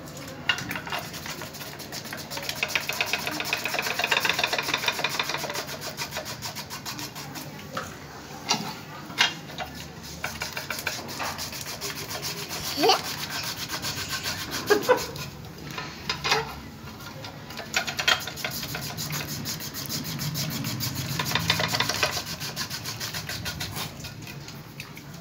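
Hand-cranked potato chips slicer with a rotating disc carrying a stainless-steel blade, shaving peeled potatoes into thin chips: a fast, rasping scrape that grows louder in spells as potatoes are pressed against the blade, with a few sharp clicks.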